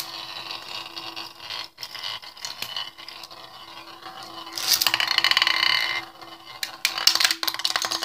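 Beyblade Burst spinning tops whirring and scraping across a glass pot-lid stadium, with a louder grinding stretch about five seconds in and a run of sharp clicks as they strike each other near the end.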